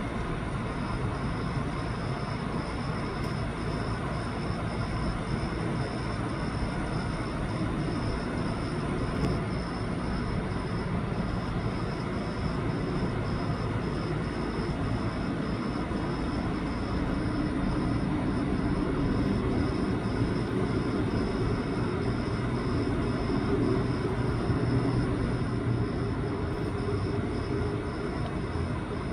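Steady outdoor rumbling noise that swells a little in the second half, with a faint high pulsing sound repeating about twice a second.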